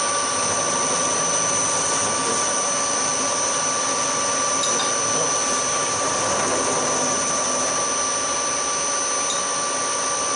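Hafco HM 54GV milling machine running steadily with its spindle turning: an even mechanical hum with a steady high whine on top.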